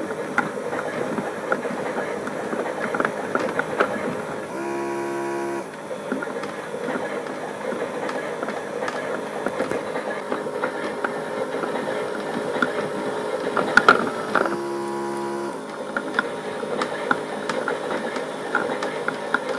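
Battery-powered toy washing machine (Theo Klein Miele Novotronic) running a wash: its small motor turns the drum with a clicky, rattling gear noise. This breaks off twice for about a second of a steady buzzing hum.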